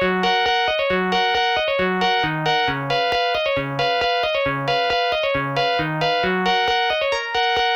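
Samsung SGH-T300 polyphonic ringtone played back on an MCP-MA7 ringtone synthesizer: a fast run of short, bright keyboard-like notes over a slower bass line.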